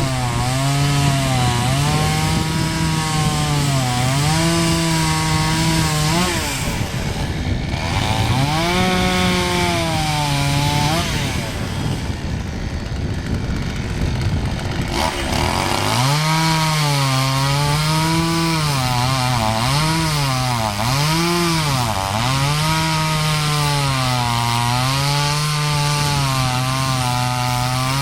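Husqvarna T 540 XP top-handle two-stroke chainsaw running at high revs, its pitch dipping and recovering again and again as the chain bites into the wood and frees. The engine note drops away twice, about six seconds in and again for several seconds near the middle, then comes back up at full throttle and keeps cutting.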